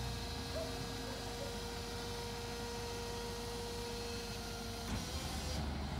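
Steady hydraulic whine from the tractor-driven scissor-lift tipping trailer over the low run of the tractor's engine. The whine stops with a soft knock about five seconds in, and the engine note then comes up.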